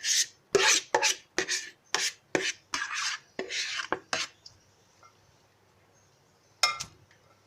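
A spoon scraping and scooping the chickpea mixture out of a pot into a serving bowl, about a dozen quick rasping strokes, then a single sharp clink near the end.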